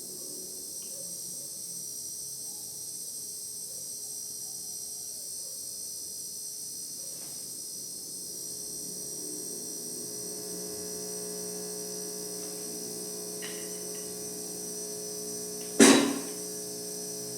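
Steady electrical hum from an amplified speaker, with a cicada buzzing high in the background. Near the end comes one loud drum hit from a Seven SD-7000 electronic drum kit through the speaker, dying away quickly.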